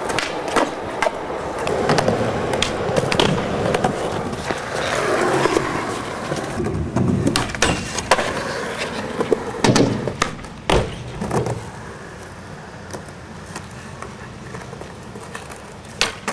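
Skateboard wheels rolling on smooth concrete, with several sharp clacks of the board's tail and deck hitting the ground as tricks are popped and landed. The rolling is louder in the first half and quieter after about twelve seconds.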